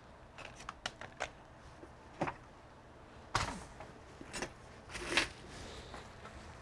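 Scattered light clicks and taps of hands working on the computer's parts and tools, with a few louder knocks about two, three and a half, four and a half, and five seconds in.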